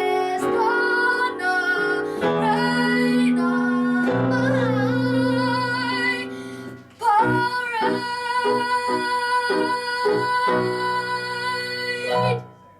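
A woman singing a show tune over instrumental accompaniment, building to a long held final note with vibrato while the accompaniment hits a string of short chords beneath it. The music cuts off abruptly near the end.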